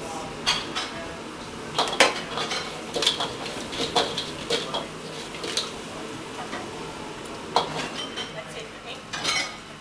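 Metal ladle clanking and scraping against a wok as crab pieces are stir-fried and tossed, in irregular clusters of sharp clanks, the loudest about two seconds in. Sizzling under the clanks.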